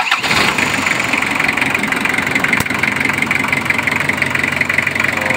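Diesel engine starting right after a five-second glow-plug preheat and running at a steady idle. The start comes through a hand-wired bypass of the burnt glow-plug controller relay, the fix for its hard starting.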